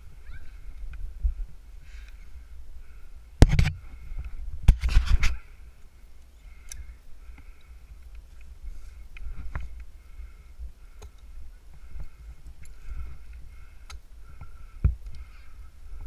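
Climbing rope and hardware handled close to a helmet-mounted camera: rubbing and low rumbling, with sharp knocks against the tree about three and a half seconds in, a cluster of knocks around five seconds, and one more near the end.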